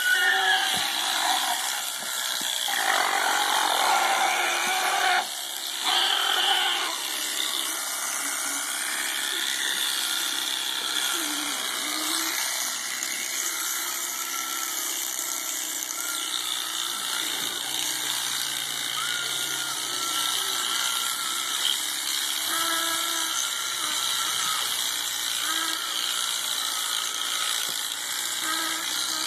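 Electric animal-shearing clippers running steadily as they cut through an alpaca's fleece, a little louder for a few seconds early on.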